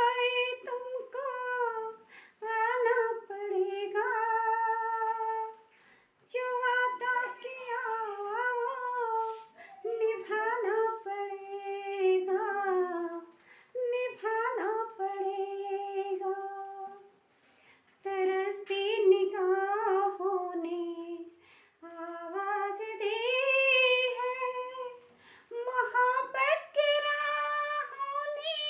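A woman singing a Hindi film song alone, with no accompaniment, in a high voice with gliding, ornamented phrases and short breaks for breath between them.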